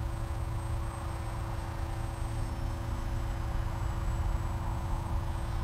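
Wind rumbling on an outdoor microphone, with a faint steady hum underneath.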